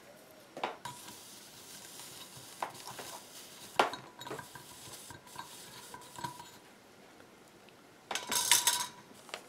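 Light clinks and taps of tools and glass pieces being handled on a work table, a handful of separate knocks with a faint hiss between them, and a louder clatter near the end.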